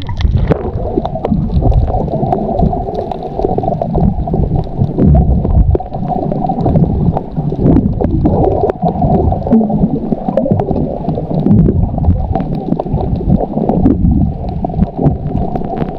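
Muffled water gurgling and sloshing, as heard underwater, with scattered faint clicks throughout.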